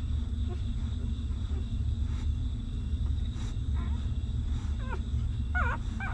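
Newborn puppies whimpering while nursing: a few thin, high squeaks in the second half, the clearest just before the end, over a steady low hum.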